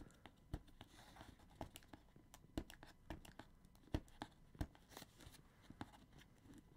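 Hands working a cardboard headset box open: faint, irregular clicks and scratches with light tearing of the packaging.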